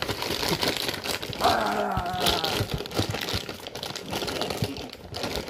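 Crinkly plastic snack packaging of Ritz cheese crisps being handled and opened, with irregular crackling throughout. A short hum-like pitched sound comes about a second and a half in.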